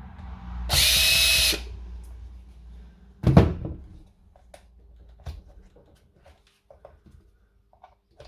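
A powered screwdriver with a Torx T20 bit whirs for about a second, backing a screw out of the tool's housing. A loud knock follows about three seconds in, then light clicks and taps of the screw and plastic parts being handled.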